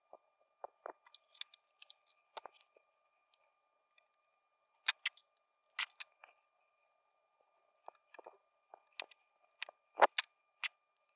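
Scattered small clicks and taps of a soldering iron and a spool of solder wick being worked against the lamp pins and metal chassis of a stereo receiver during desoldering, a few at a time with the loudest near the end, over a faint steady high tone.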